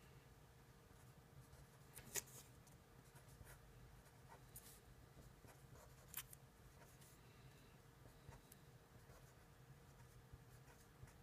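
Felt-tip marker writing on paper: faint stroke-by-stroke scratching, with two sharper ticks about two and six seconds in, over a faint steady hum.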